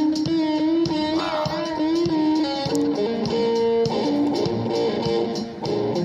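Background music led by electric guitar, playing held notes that slide and waver in pitch over a steady beat.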